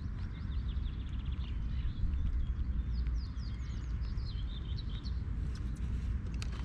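Small birds singing: a run of quick chirps and short downward-sweeping whistles, over a steady low rumble.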